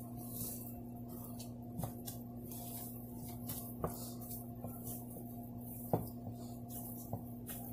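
A hand kneading crumbly rasgulla dough of chhena, cornflour and semolina in a bowl: faint rubbing with a few light knocks against the bowl, over a steady low hum.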